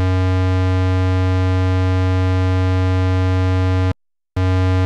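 Analog synthesizer oscillator holding a steady, loud, low square-wave note. It cuts off about four seconds in, and after a short silence the same note sounds again from the second, identical synth for comparison.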